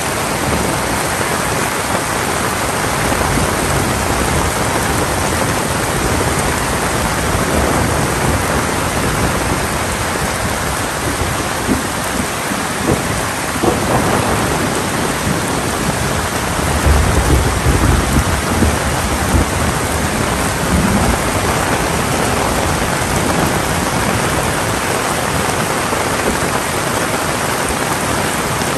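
Heavy rain falling steadily and drumming on surfaces, with a low rumble of thunder a little past the middle lasting about three seconds.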